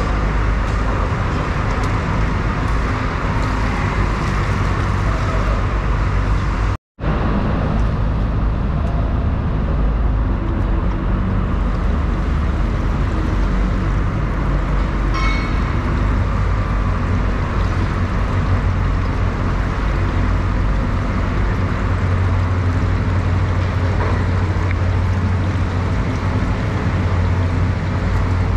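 Steady rumbling background noise, like traffic or engines running, that cuts out for an instant about seven seconds in.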